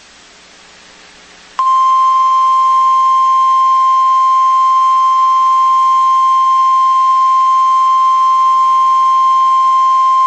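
NOAA Weather Radio warning alarm tone: one steady, loud 1050 Hz beep, held for about nine seconds, starting about a second and a half in after a short stretch of faint radio hiss. It is the alert signal that comes before an emergency warning message.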